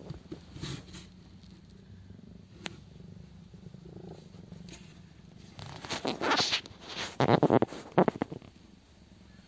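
A ginger domestic cat purring steadily, close to the microphone. From about six to eight seconds in, loud rustling and scuffing of fur against fleece bedding covers the purr as the cat shifts position.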